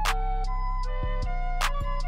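Background music: a flute-like melody over a steady bass, with a regular percussive beat.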